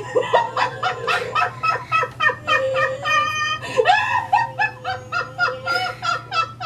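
A woman laughing hard and helplessly in rapid high bursts, several a second, mixed with the electronic growl of a talking Chewbacca mask whose sound plays as its mouth moves.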